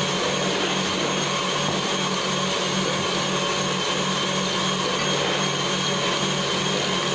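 Stand mixer running steadily, its whisk beating whipped egg-and-sugar batter as melted butter is poured in; an even motor whir that does not change.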